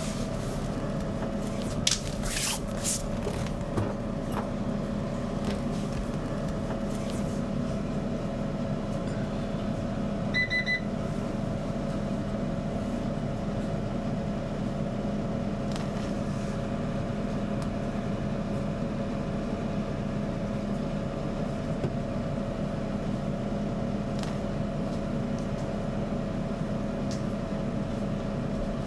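Hair dryer running steadily with a constant hum, blowing on a cat's fur. A short electronic beep sounds about ten seconds in.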